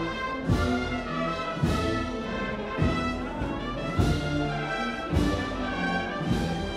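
A band plays a slow Holy Week processional march: brass carrying sustained chords and melody over a bass-drum beat that falls about once a second.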